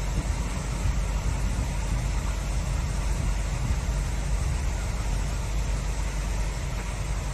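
High, fast stream rushing over shallow rapids: a steady, unbroken rush of water with a strong low rumble.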